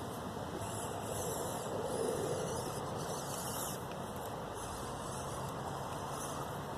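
Axial SCX24 micro RC crawler driving, its small electric motor and gears whirring steadily.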